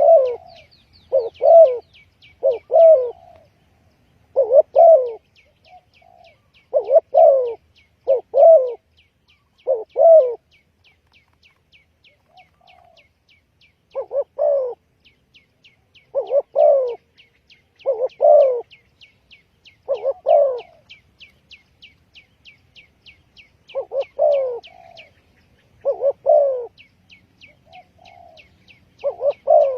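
Spotted dove cooing: bending, hoarse coo notes repeated every one to two seconds, with a couple of short pauses. Runs of fast, faint, high ticks sound behind them.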